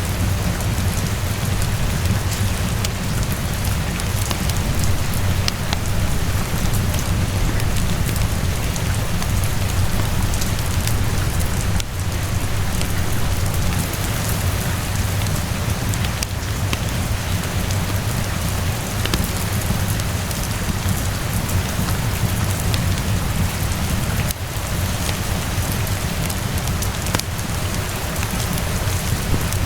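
Steady rainfall with a constant low rumble underneath, mixed with the scattered small pops of a crackling wood fire.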